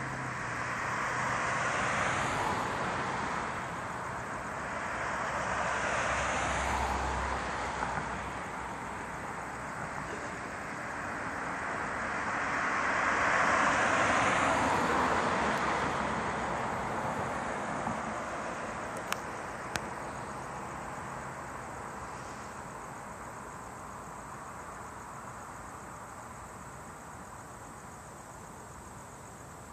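Cars passing on the road one after another, their tyre and engine noise swelling and fading three times, the loudest about fourteen seconds in. There are two brief clicks a little after that, and the traffic then dies down to a distant steady hum.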